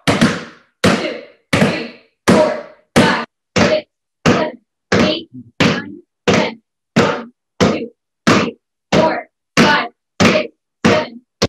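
A hand slapping a basketball over and over in a steady rhythm, about three slaps every two seconds, each a sharp smack that dies away quickly.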